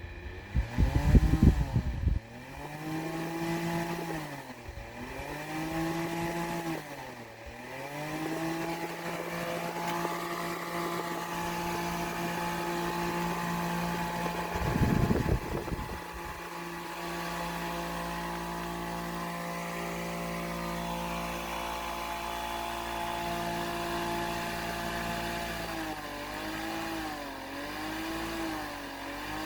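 Small electric fan motor whining, its pitch dipping and recovering every couple of seconds, then running steady, then wavering quickly near the end. Two loud low rumbling bumps break in, about a second in and again about halfway.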